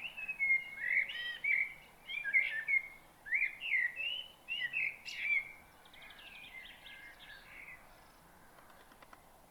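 Small songbirds singing and chirping in quick, bending phrases for about six seconds, then a fainter, faster run of notes that fades out near the end.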